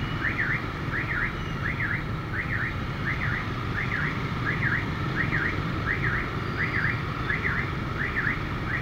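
An electronic alarm repeating a short warbling chirp, about three times every two seconds, over the low rumble of idling motorbikes in stalled traffic.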